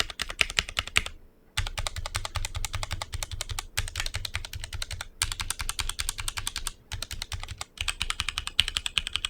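Fast typing on a HyperX Alloy Origins Core mechanical keyboard with HyperX Aqua tactile switches: rapid runs of sharp keystrokes, broken by brief pauses about a second in and a few more times later.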